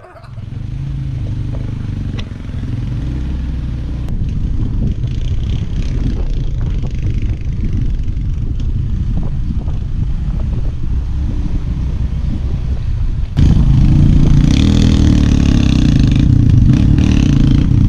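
Motorcycle engine running while under way. It grows steadily louder and steps up suddenly about 13 seconds in.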